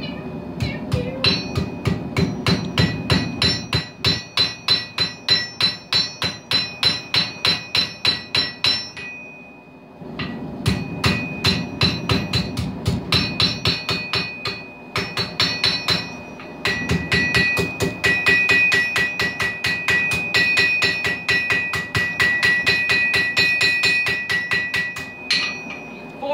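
Hand hammer striking hot steel on an anvil while forging a drawknife blank: rapid, even blows, about three a second, each with a bright ring from the anvil. The hammering stops for about a second near the middle, then goes on.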